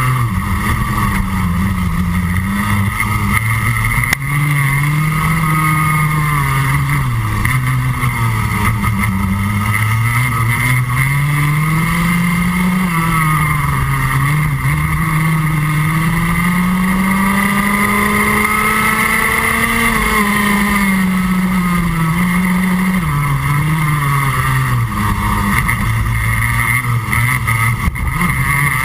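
Rotax Max Junior 125cc two-stroke kart engine heard onboard at racing speed, its pitch climbing on the straights and dropping as it slows for each corner, over and over. Engines of the karts just ahead run alongside it.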